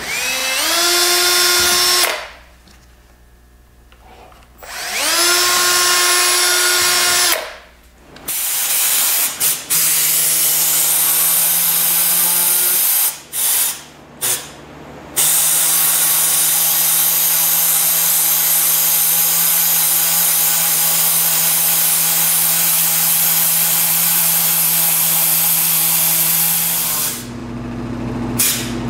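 A cordless drill runs twice for about two seconds, each time spinning up with a rising whine, boring into a plastic dash panel. Then an air-powered rotary tool runs in short bursts and finally steadily for about ten seconds, cutting out a slot for a switch.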